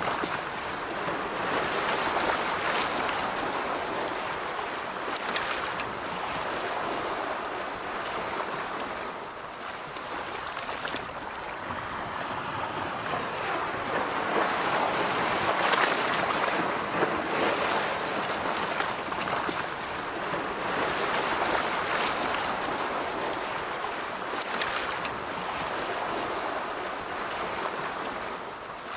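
Surf washing onto a beach: a steady rush of waves that slowly swells and eases, loudest about halfway through.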